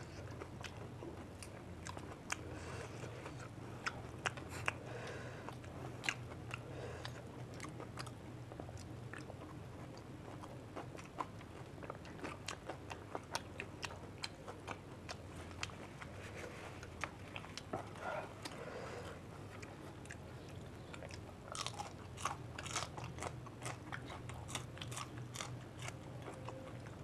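Two people biting, crunching and chewing crisp fuchka (pani puri) shells, each stuffed with a whole green chili. Many short, sharp crunches come at an uneven pace throughout.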